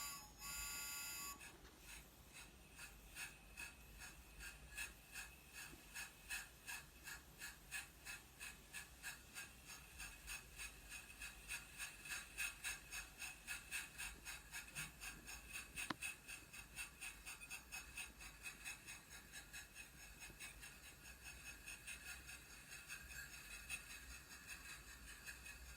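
Train-shaped mini humidifier playing its steam-train chugging sound effect: soft, even puffs about two or three a second. A short electronic tone sounds in the first second, as it is switched on.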